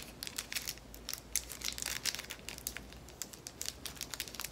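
Small plastic zip bag of diamond-painting drills crinkling and crackling as fingers pinch and work at its top to get it open, a quick irregular run of sharp crackles.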